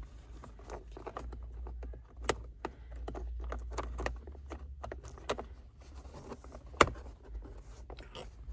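Plastic car interior trim being handled and fitted by hand: a string of irregular clicks, taps and knocks, with a sharp click about two seconds in and the loudest one near the seven-second mark.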